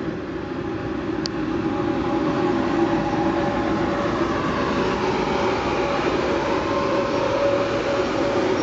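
Rhaetian Railway Ge 4/4 II electric locomotive and its red coaches rolling past on the metre-gauge line, growing louder as the locomotive nears, with a steady whine of several tones over the rumble of the wheels.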